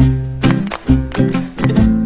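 Background music with a regular beat, pitched notes struck about two to three times a second.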